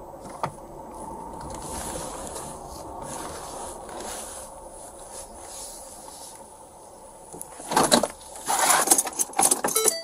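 Steady cabin noise of a Ford police vehicle on the move. Near the end come a run of loud rustles and knocks, from the driver's hands and arms moving close to the body-worn camera.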